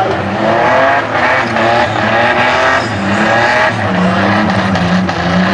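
Holden Commodore's high-mileage 3.8-litre V6 held at high revs in a burnout, the revs wavering up and down while the rear tyres spin and squeal.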